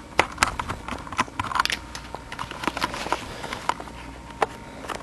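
Camera handling noise: a run of irregular clicks and knocks as the camera is taken off its tripod and moved by hand.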